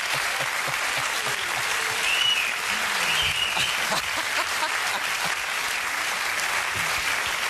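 Studio audience applauding steadily, with a couple of short cheers about two and three seconds in.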